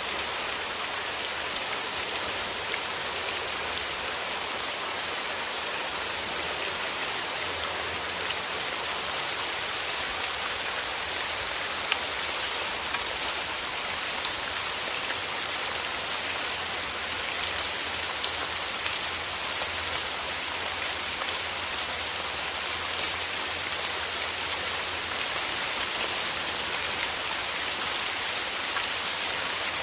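Steady rain falling, an even hiss with many small drop patters, with no thunder.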